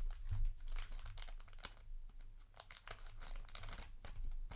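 Foil wrapper of a Cardfight!! Vanguard booster pack crinkling and tearing as it is opened, in irregular crackles.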